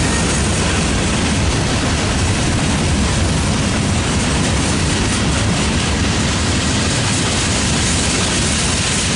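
Freight train of boxcars and covered hoppers rolling past close by: a steady, unbroken noise of steel wheels running on the rails, strongest in the low range.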